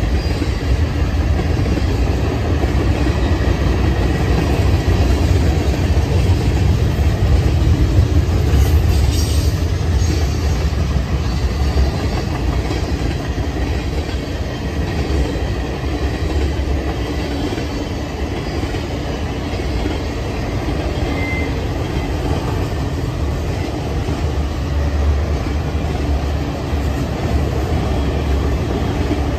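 Freight train rolling past at close range, a string of tank cars giving way to autorack cars: a steady, loud rumble of steel wheels on the rails.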